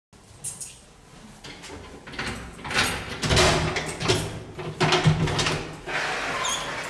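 A door being opened: a run of knocks, clicks and rattles, with a short squeak near the end.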